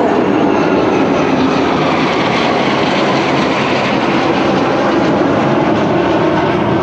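HAL HJT-16 Kiran Mk II jet trainers flying past overhead in close formation, their turbojet engines making a loud, steady jet noise.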